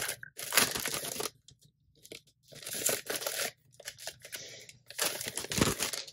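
Clear plastic packaging sleeve around a pack of planner inserts crinkling and tearing as it is worked open by hand, in several bursts with short pauses between.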